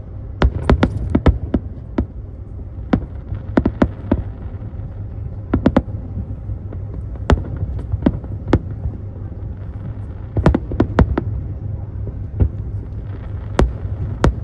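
Fireworks bursting: a string of sharp bangs, some single and some in quick clusters of two or three, over a steady low rumble.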